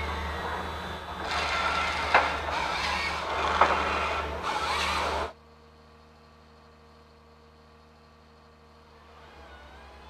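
Komatsu 911 forest harvester working: its diesel engine runs loud and steady, with two sharp cracks about two and three and a half seconds in. About five seconds in the sound cuts off suddenly to a much quieter, steady distant hum.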